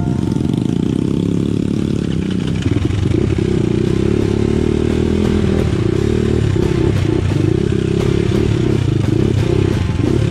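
Dirt bike engine running and revving on a trail ride, its note pulsing rapidly up and down, with clattering over it.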